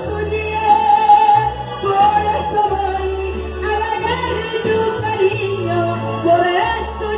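A woman sings into a microphone over backing music, her melody rising and falling above a steady bass line.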